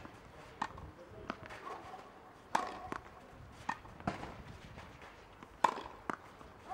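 Tennis balls being hit in a groundstroke rally on a clay court: sharp racket pops with softer ball bounces between them. The two loudest hits come about three seconds apart.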